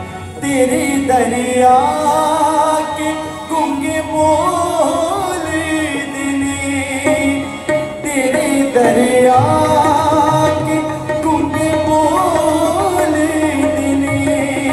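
A man singing a devotional geet into a microphone, with a harmonium playing chords and melody beneath the voice.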